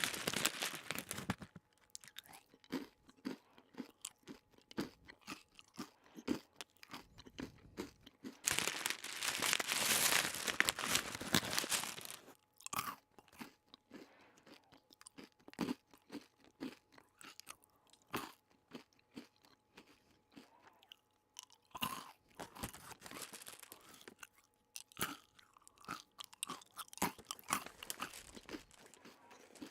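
Close-up crunchy eating: a mouth biting and chewing something crisp, in dense crackly spells of crunching with quieter separate crunches between.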